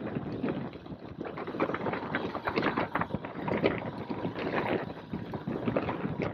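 Motorcycle riding slowly over a rough dirt track: wind noise on the microphone, with irregular knocks and rattles as the bike jolts over the bumps.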